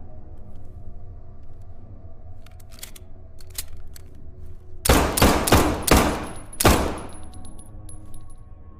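A few faint clicks, then five pistol shots from a 1911 in quick succession, under two seconds in all, each with a short echoing tail.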